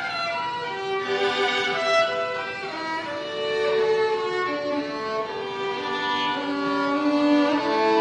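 Instrumental music led by a violin, playing long held notes over other sustained lines.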